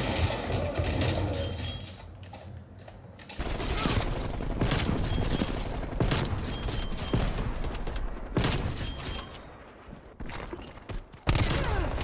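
Video game gunfire: rapid automatic weapon fire in runs of shots, easing off about two seconds in and again near ten seconds, then loud again just before the end.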